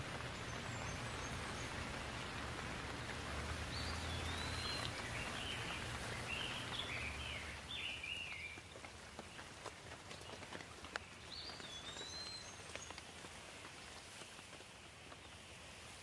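Steady rain falling, easing somewhat about halfway through, with a bird chirping in short bursts over it and a few sharp ticks of single drops.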